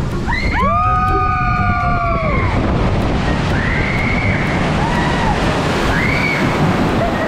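Several riders screaming together for about two seconds on a log flume ride, over rushing water and wind on the microphone, followed by a few shorter shrieks.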